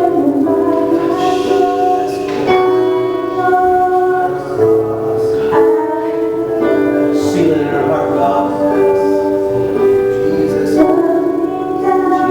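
Worship music: a congregation or worship team singing slow, sustained sung lines, led by female voices, over instrumental accompaniment.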